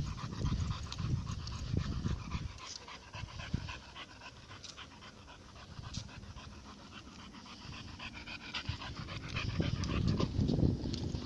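Dog panting as it walks, the breaths louder at the start and again near the end, with a quieter spell in the middle.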